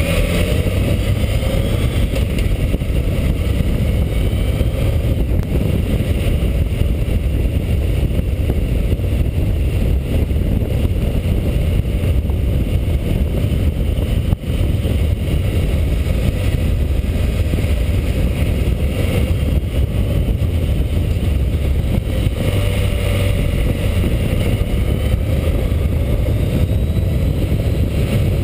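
Motorcycle being ridden at road speed, heavy wind rush on the bike-mounted microphone over the engine, whose note rises and falls a few times.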